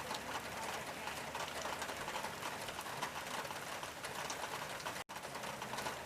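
Rain on a tin roof: a dense, steady patter of drops over a continuous hiss. The sound cuts out for an instant about five seconds in.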